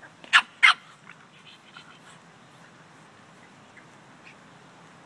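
Two sharp, high puppy yips about a third of a second apart near the start, then only faint small sounds.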